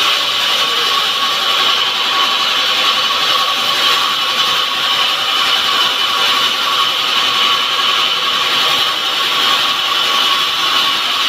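Electric hand-held circular saw running steadily, cutting wood, with a constant high whine over the noise of the cut.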